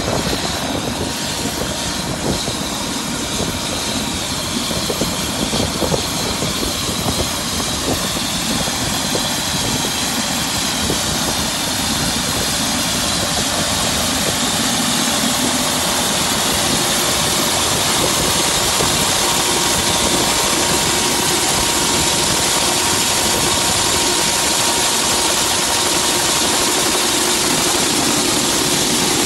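Helicopter turbine engine running on the ground: a steady whine over a broad rushing noise, growing slightly louder about halfway through.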